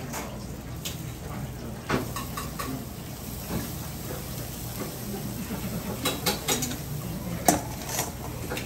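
A handful of sharp metallic clinks as metal tongs handle food between a stainless steel bowl and the wire grill of a charcoal brazier, the loudest near the end, over steady kitchen background noise.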